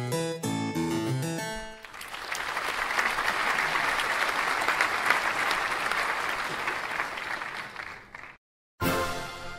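A short plucked-string music phrase ends about two seconds in, and an audience applauds for about six seconds, fading out; after a brief silence new music starts near the end.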